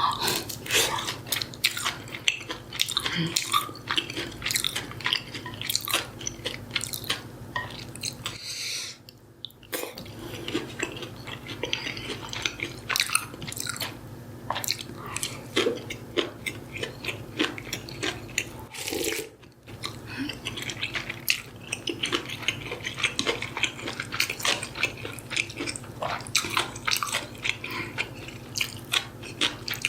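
Close-miked eating sounds: steady chewing and biting with many small wet clicks and crackles, pausing briefly twice.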